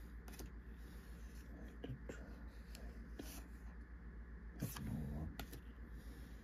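Pokémon trading cards being slid one by one from the front to the back of a handheld stack: soft, scattered card swishes and flicks, with a louder rustle about four and a half seconds in, over a steady low hum.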